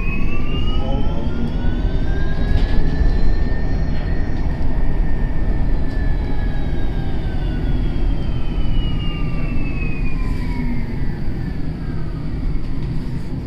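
German city bus running with a jet-like whine over a loud low rumble. The whine rises in pitch over the first few seconds, holds, then slowly falls as the bus slows.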